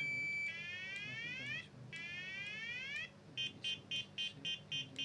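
Motorcycle anti-theft alarm siren going off, cycling through its tones: a steady tone, then two runs of fast rising sweeps, then rapid beeping about three to four beeps a second. The siren is sounding because the armed alarm has been triggered.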